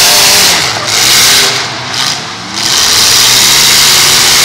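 Engines of several full-size demolition derby cars revving loudly, their pitch rising and falling, with a brief lull about two seconds in.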